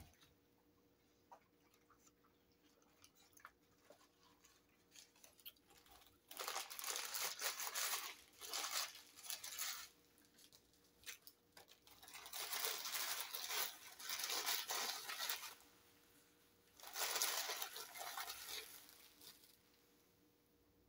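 Fast-food burger wrapping crinkling and rustling as it is handled and unwrapped, in three long bouts of a few seconds each, the first starting about six seconds in.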